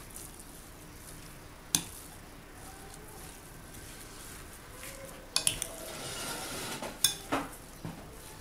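Minced beef and chopped onion being mixed by hand in a ceramic bowl: a soft rubbing, mixing noise with a few sharp clinks, one near two seconds in and a cluster from about five and a half to seven and a half seconds in.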